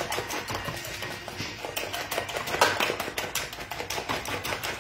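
Fork beating eggs in a clear plastic tub: rapid, even clicking of the fork tines against the container's sides and bottom.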